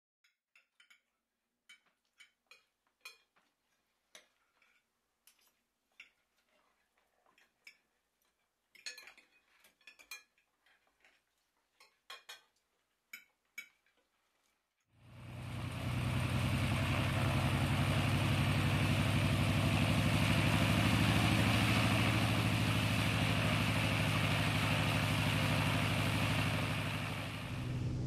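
Sparse, quiet clinks of dishes and cutlery, then about halfway through a loud, steady engine drone fades in quickly and runs on, dipping slightly near the end.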